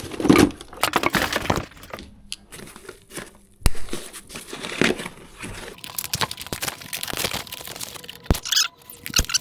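Bike packaging being cut and pulled off with snips: crinkling, rustling plastic and foam wrap with several sharp snaps, the loudest nearly four seconds in.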